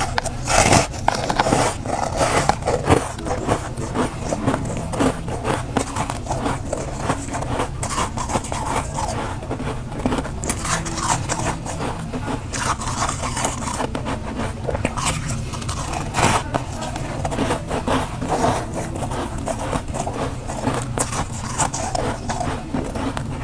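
Metal spoon scraping and gouging thick, soft freezer frost off the freezer wall, in a run of quick, crunchy scrapes. There is a bite of the frost near the start.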